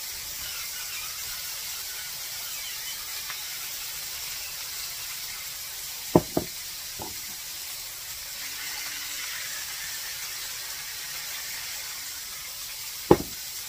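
Ground-chicken patties frying in oil in a skillet, a steady sizzling hiss. A few sharp knocks cut through it: two close together about six seconds in, a fainter one just after, and one loud knock near the end.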